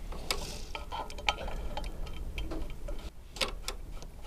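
Light irregular clicks and taps of a ring spanner and an oxygen sensor as the sensor is wound back into a scooter exhaust by hand, over a low steady hum.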